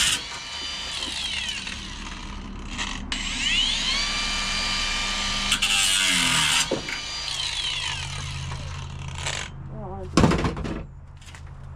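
Power drill drilling out spot welds in a car's sheet-steel floor pan, its motor whine rising as it spins up and falling as it winds down. A loud thump comes about ten seconds in.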